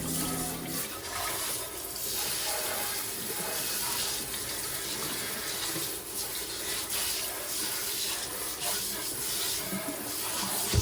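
Tap water running into a sink, with uneven splashing. Background music ends about a second in.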